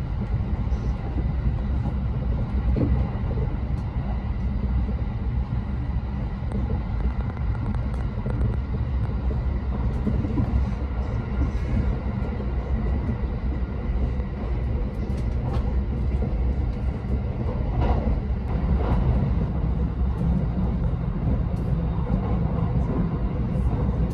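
Train running: a steady low rumble throughout.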